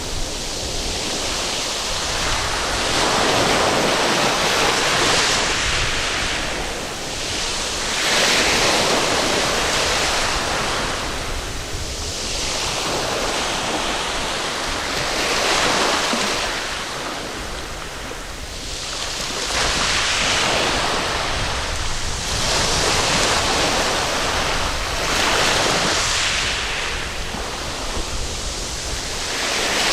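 Sea waves breaking and washing up a sandy beach, the surf rising and falling every few seconds.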